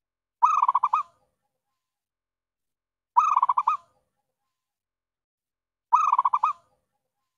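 Zebra dove (perkutut) cooing: three short, identical phrases of quick rolling notes, evenly spaced about every three seconds. It is a lure call, used to draw wild zebra doves to the caged decoy.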